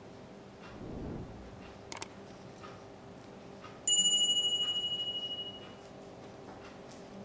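A single bright ringing ding, struck once about four seconds in and dying away over about two seconds with a slight waver. Before it come a soft rustle and two light clicks, and faint regular ticking runs underneath.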